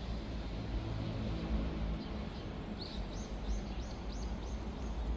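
A bird giving a quick series of about seven short, high chirps, roughly three a second, beginning about halfway through, over a steady low rumble.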